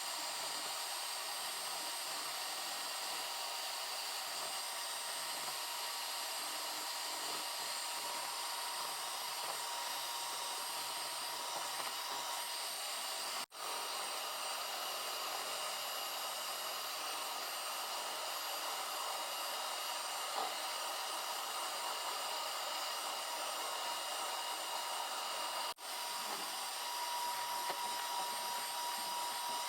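Electric mixer motor running steadily, whisking the egg-cake batter, with a faint whine over the whir; the sound drops out for an instant twice.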